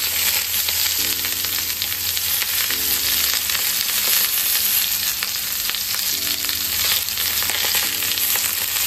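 Vegetables sizzling steadily on a hot ridged grill pan: courgette slices, peppers and mushrooms searing, with a fine crackle in the hiss.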